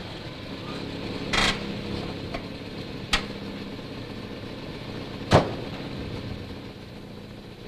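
Car engine running steadily as the car pulls up, with a brief rasp about a second and a half in. A car door latch clicks about three seconds in, and the door slams shut about two seconds later; the slam is the loudest sound.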